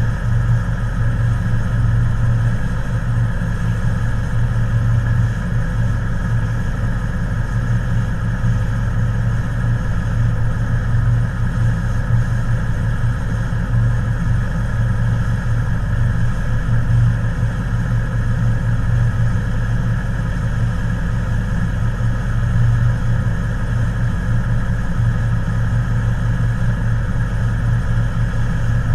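Single-engine turbine helicopter running on the ground with its rotor turning at idle: a steady low hum under a constant turbine whine.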